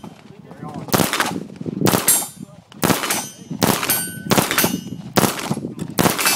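Heckler & Koch MP5 submachine gun firing on full auto in short bursts, about seven of them, each under a second long and coming less than a second apart.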